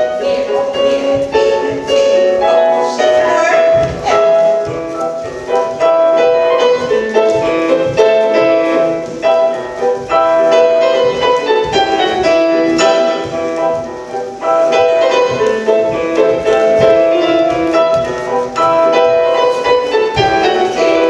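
Live piano music played on an electric keyboard, a continuous flowing melody with chords, as accompaniment for ballet exercises.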